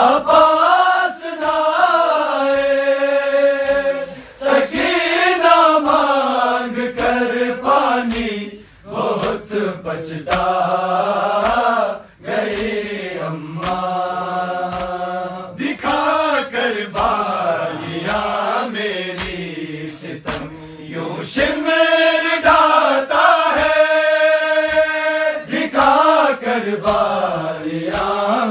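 A group of men chanting a Muharram noha together in long held notes that wave and fall, with short breaks between lines. Sharp slaps of matam, hands striking chests, sound through it.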